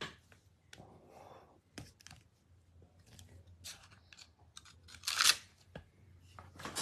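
Large clear acrylic stamp block being pressed by hand onto cardstock: scattered small clicks and rubbing as the hands press across it. A louder scraping rustle comes about five seconds in as the block is lifted off the card.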